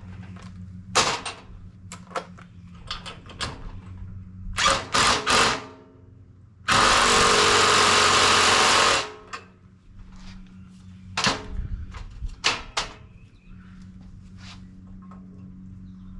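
Metal tools clanking and knocking while a Johnny Joint rebuild press is set up in a vise, with a power tool running steadily for about two seconds in the middle, the loudest sound here.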